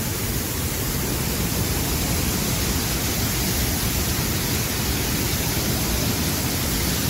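Steady roar of muddy floodwater rushing through a collapsed road.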